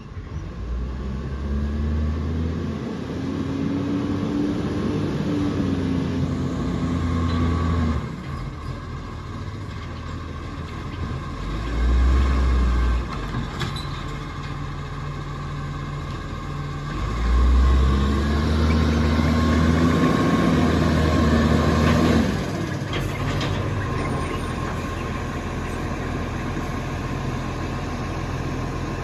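Iveco side-loader garbage truck's diesel engine idling, twice revving up for several seconds and falling back, the way the engine speeds up to drive the hydraulic bin-lifting arm. A short low surge about twelve seconds in.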